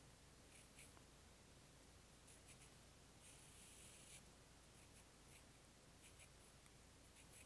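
Faint scratching of a wooden pencil writing numerals on paper: a string of short strokes, with one longer stroke about three seconds in.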